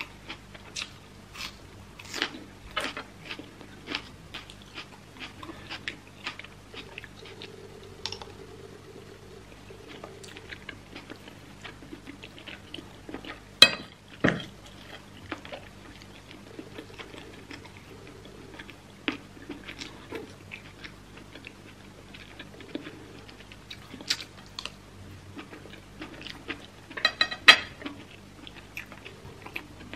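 Close-miked chewing and crunching of raw red onion and rice with beef stew, with wet mouth clicks. About halfway through, a metal spoon clinks sharply against the ceramic plate with a short ring, the loudest sound. Near the end comes a quick run of crunchy bites.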